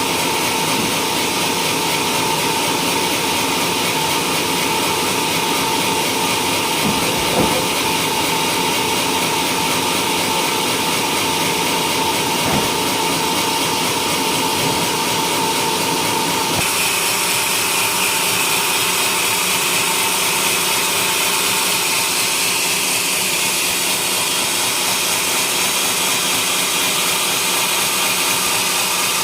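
Sawmill saw running and cutting through a coconut palm trunk, a loud steady mechanical drone. About two-thirds of the way through the tone shifts higher and stays there, with a couple of light knocks earlier on.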